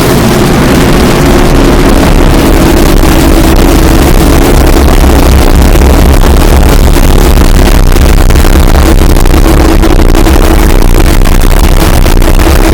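Harsh noise: a chainsaw engine running, distorted and clipped into a dense, loud wall of noise with a steady drone and heavy bass.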